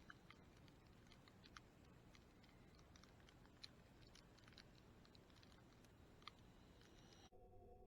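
Near silence with faint, irregular clicks and ticks scattered through it; the background changes abruptly near the end to a faint steady hum.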